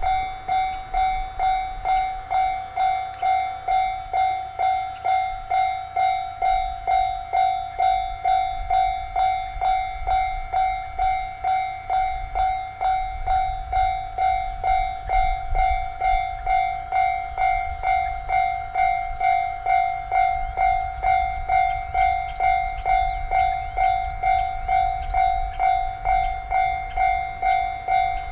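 Japanese level-crossing warning bell ringing continuously, a single steady pitch struck evenly a little under twice a second, signalling an approaching train.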